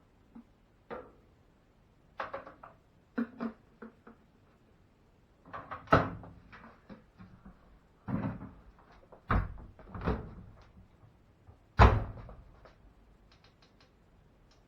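A series of knocks and clunks from a Whirlpool front-loading washer's door and fittings being handled and shut: light clicks in the first few seconds, then several heavier thuds, the loudest about twelve seconds in.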